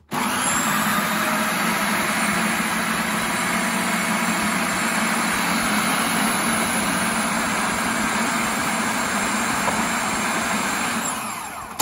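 Food processor motor running steadily, its blade beating buttercream of icing sugar, butter and milk. It starts suddenly and winds down near the end.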